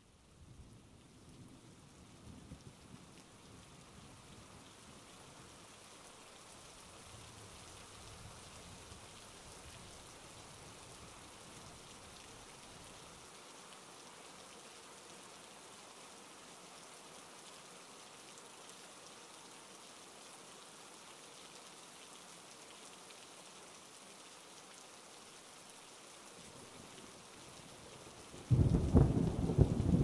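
Steady rain hissing as it falls on a surface, with low thunder rumbling in the first half. Near the end a loud clap of thunder breaks and rolls on.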